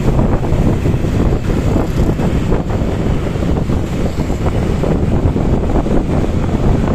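Wind buffeting the microphone on a moving vehicle, a steady dense rumble mixed with road and engine noise.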